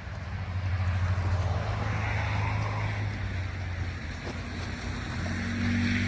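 Cars passing on a slushy, snow-covered road: tyre hiss on the wet surface swells about two seconds in and again near the end, over a steady low engine hum.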